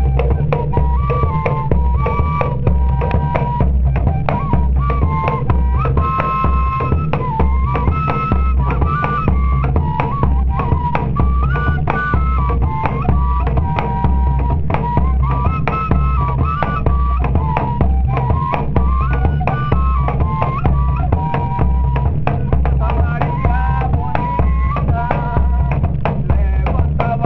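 Pífano (cane fife) playing a stepping melody over a steady drum and percussion beat.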